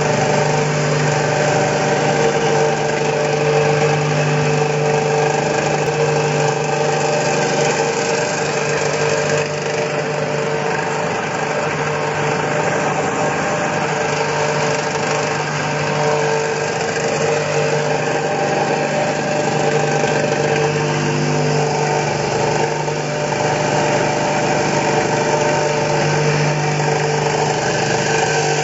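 AZ-1500 grain aerator fan running steadily, a constant machine hum with a whooshing air rush over it.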